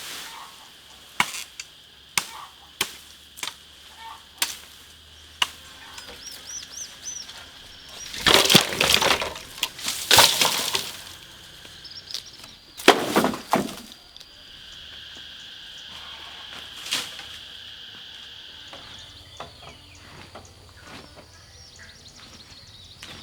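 Sharp snaps and cracks of brush and branches being broken and cut while clearing overgrown vegetation: several single snaps a second or so apart at first, then longer crackling, rustling bursts about a third of the way in and again shortly after.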